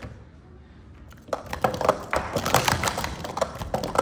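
Plastic sport-stacking cups clattering in quick, sharp clicks and knocks as they are stacked at speed, starting about a second in.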